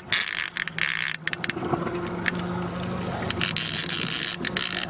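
Boat motor running steadily at low speed, a constant low hum, under patches of wind-and-water hiss that come and go, with scattered sharp clicks and knocks.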